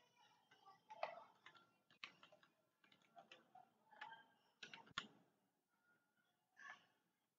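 Faint, irregular keystrokes on a computer keyboard as text is typed.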